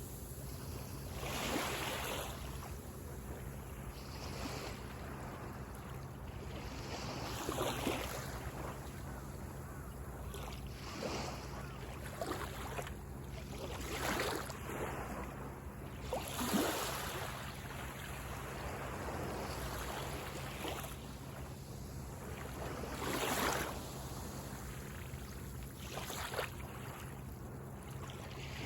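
Small sea waves breaking and washing up on a beach, a rush of surf every two to three seconds over a steady low rumble.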